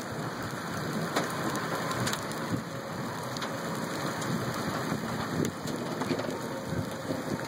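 Steady rain falling, with scattered sharper drop hits.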